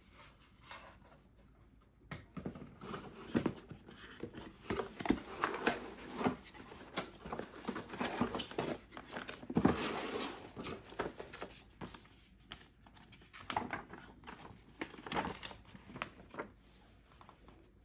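Packaging being handled and unwrapped: irregular crinkling, rustling and light knocks, starting about two seconds in.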